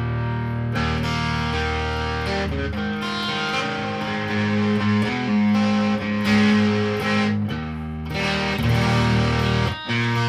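Electric guitar played through a breadboard prototype of a molecular-junction clipping distortion pedal, set to high gain, so the tone is heavily distorted. Sustained chords ring and change every second or so, with a short break near the end.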